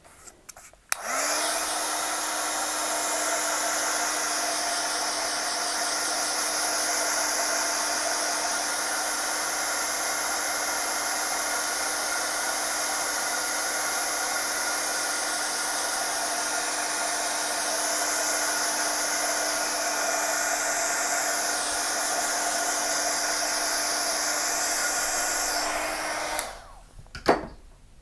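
Handheld craft heat tool blowing hot air over wet watercolour paint to dry it: a steady whir of air with a steady hum. It switches on about a second in and cuts off shortly before the end.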